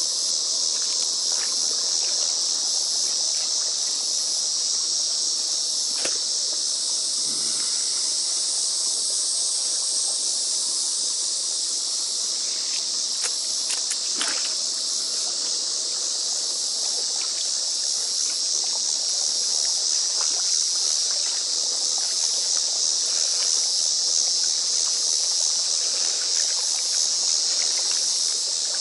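Steady high-pitched chorus of insects singing, with a few faint splashes and knocks from a leaf rake pulling algae through shallow pond water.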